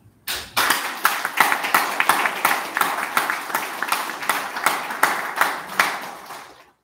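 Audience applauding, with many hands clapping. The applause starts suddenly and fades out near the end.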